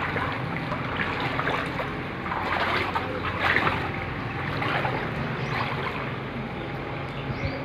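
Floodwater rushing past in a steady wash of noise that swells a little now and then.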